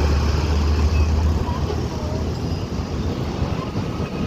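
Road traffic going by, with a deep engine rumble from a passing vehicle that is strongest for about the first second and a half, then steady traffic noise.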